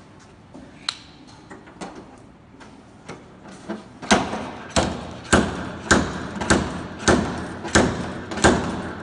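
Slide-hammer dent puller hooked onto rings welded to a dented steel panel, its sliding weight knocking against the stop to pull the dent out. After a few light handling clicks, eight sharp metallic knocks begin about four seconds in, a little over one a second, each ringing briefly.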